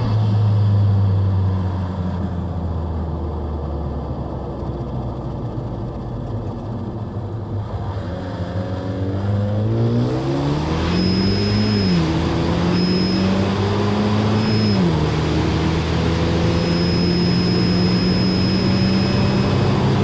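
2017 Ford Escape's 2.0 EcoBoost four-cylinder, with a K&N drop-in filter and the airbox lid off, running under load. The engine note eases off, then rises as it accelerates, dropping twice at the upshifts. From about halfway a high, thin whistle from the small turbo spooling comes in, breaks off a couple of times, then holds steady.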